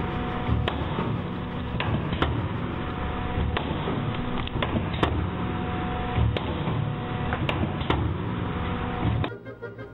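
Food forming machine running: a steady mechanical hum with tones that come and go, and sharp clicks and knocks every second or so. Just before the end it cuts off suddenly and soft music starts.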